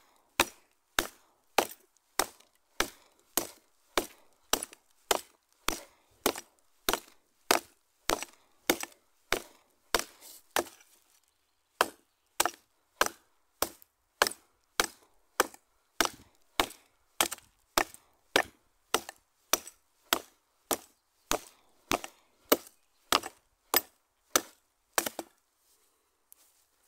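A light 545 g tomahawk chopping into a wooden branch: sharp, evenly spaced blows, almost two a second, with a short pause about eleven seconds in, stopping near the end.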